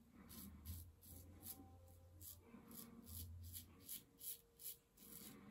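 Rotbart Mond-Extra double-edge safety razor with a Feather blade scraping stubble through shaving lather: faint, short, quick strokes, about two to three a second.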